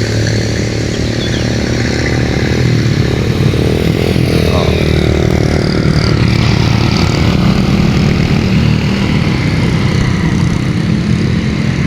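Road traffic going past close by: motorcycle and other vehicle engines running steadily, with a second engine note joining after about seven seconds.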